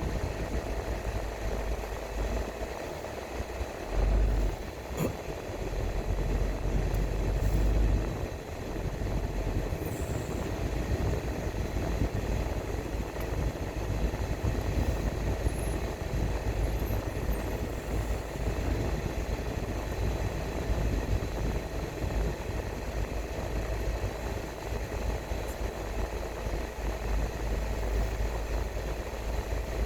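Car driving along a road: steady engine and tyre rumble, heavier for a few seconds between about 4 and 8 seconds in.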